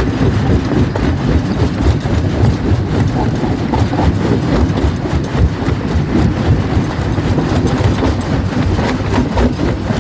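Quarry jaw crusher running and crushing rock: a heavy, continuous low rumble with frequent cracks and knocks of stone breaking in the jaws.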